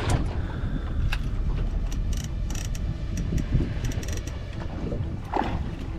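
Large conventional fishing reel clicking and ratcheting as it is worked by hand, a scatter of sharp clicks over a steady low wind rumble.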